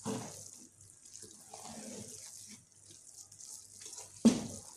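Wooden spoon stirring and scraping moist banga rice around a metal cooking pot in uneven strokes, with one sharp knock a little after four seconds in.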